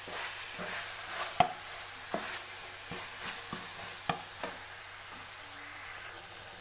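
Minced chicken sizzling in a non-stick frying pan while a plastic spatula stirs it, with sharp taps and scrapes of the spatula against the pan. The stirring stops about four and a half seconds in, leaving only the steady sizzle.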